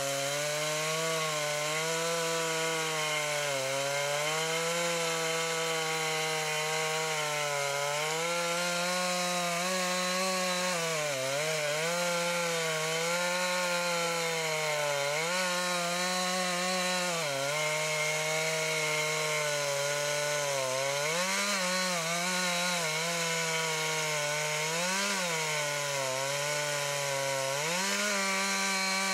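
Jonsered two-stroke chainsaw at full throttle, cutting deep into the base of a large tree trunk. Its engine note dips briefly several times as the saw bogs in the cut, then picks back up.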